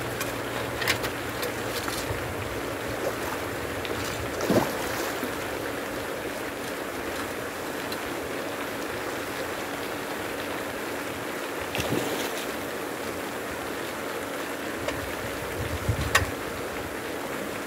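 Pond aerator spraying and splashing water steadily, with a faint motor hum and a few short knocks and clicks.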